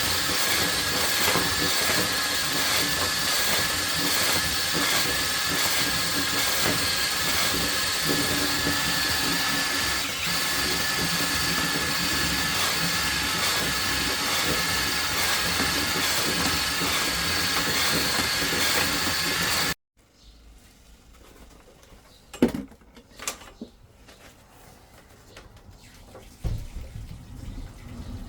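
Drain-cleaning flexi shaft machine spinning its cable inside the pipe to cut out tree roots, a loud steady whine with hiss. It cuts off abruptly about twenty seconds in, leaving a few faint knocks and then a low rumble near the end.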